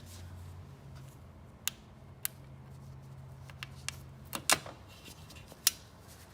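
About six sharp clicks and knocks from a plastic car bumper and its parts being handled and fitted, the loudest about four and a half seconds in. A low steady hum underneath stops around the same moment.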